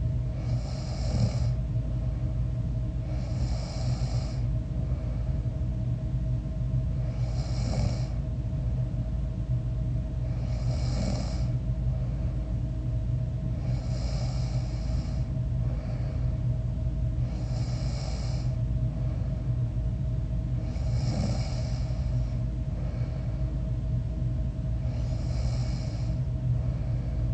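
A sleeping person snoring steadily, a breath about every three to four seconds, over a steady low background hum.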